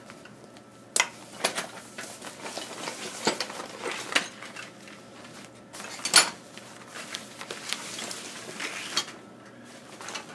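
Handling a canvas tool roll loaded with metal tools: a string of irregular clicks, clinks and knocks as it is worked open, with the sharpest knock about six seconds in.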